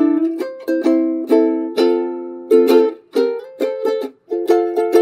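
Outro music: chords strummed on a small acoustic string instrument, about two strums a second, each ringing briefly and dying away.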